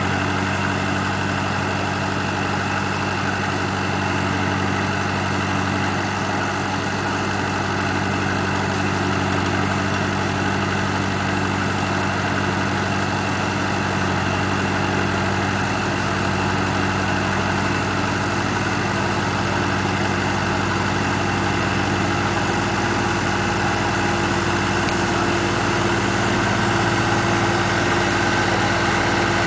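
Ebro 460 tractor's Perkins four-cylinder diesel engine running steadily while it powers the hydraulic crane, its note shifting slightly a couple of times as the crane is worked.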